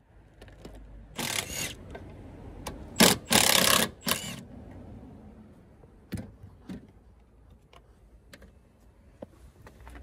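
Cordless power tool with a socket running in three short bursts in the first half, undoing bumper bolts on a car. Light clicks and knocks of metal parts being handled follow.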